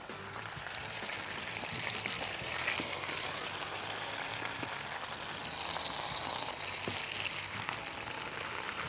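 Hot food sizzling steadily, with a few faint clicks.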